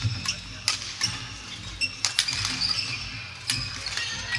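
Women's doubles badminton rally: several sharp racquet strikes on the shuttlecock, with sports shoes squeaking and feet landing on the wooden court floor.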